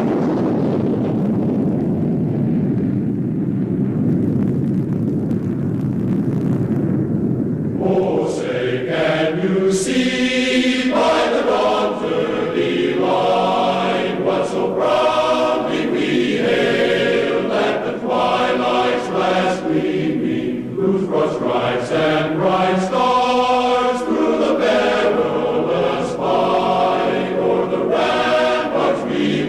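A low, steady rumbling noise for about eight seconds, then a choir singing from about eight seconds in.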